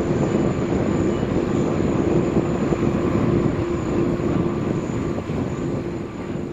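Airbus A380 jet engines running loud and steady, a rumbling roar with a steady low hum and a thin high whine, starting to fade near the end.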